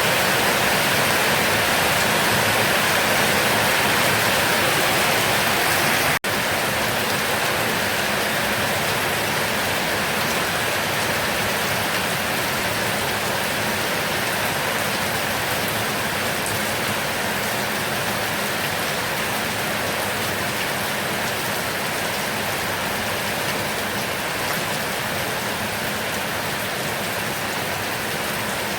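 Heavy rain pouring down steadily, a dense hiss of drops falling on surfaces. About six seconds in the sound cuts out for an instant and resumes slightly duller.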